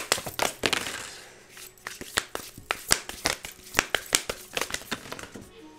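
Tarot cards being shuffled and then drawn and laid down on the table: a run of sharp card snaps and taps, dense for about the first second, then scattered clicks.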